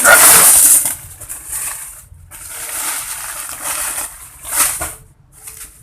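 A parcel's packaging being torn and rustled open by hand. There is a loud ripping and crinkling in the first second, then several shorter bursts of rustling with brief pauses between them.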